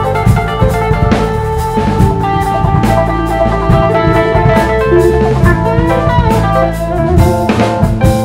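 Live rock band playing: electric guitar notes ringing over a drum kit beat.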